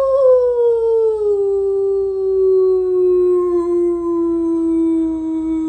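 A woman's long, drawn-out imitation of a dog's howl, made to coax her dog into howling along. It is one unbroken howl that slides slowly down in pitch.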